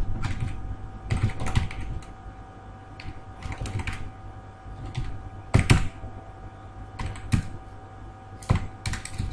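Typing on a computer keyboard: short, irregular bursts of key clicks, the loudest cluster a little past the middle, over a steady low hum.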